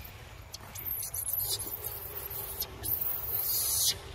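Long-tailed macaques squeaking: several short, high falling squeaks, then a longer shrill squeal near the end.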